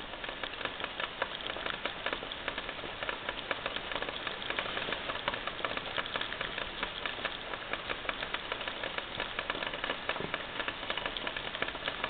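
Cup of water boiling on a homemade alcohol jet stove made from a Seafoam can, the blue jets burning beneath it: a steady crackling sizzle full of fine rapid ticks.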